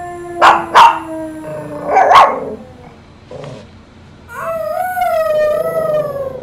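Small white fluffy dog barking sharply three times in the first couple of seconds, then letting out a long wavering howl.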